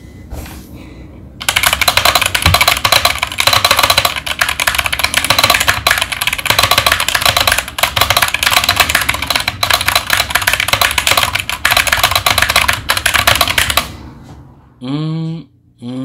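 Fast typing on a DIERYA Kemove DK61 Pro 60% mechanical keyboard with Gateron optical switches: a dense, continuous stream of key clacks that starts about a second and a half in and stops about two seconds before the end.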